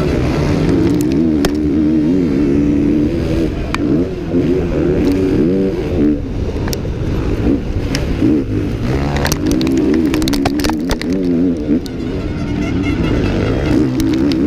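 KTM 450 SX-F four-stroke motocross bike engine racing, its pitch repeatedly rising and falling as it is revved hard and shifted through the gears, with scattered sharp knocks and clicks.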